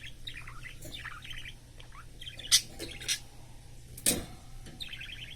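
Budgerigar chattering in quick chirps and squawks, with a few sharp, louder calls and a knock about four seconds in.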